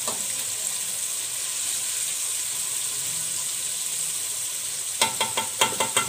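Flour-coated chicken pieces deep-frying in hot oil in a metal pan, a steady sizzle. Near the end a metal spatula knocks against the pan about five times in quick succession, each knock ringing briefly, as the pieces are turned.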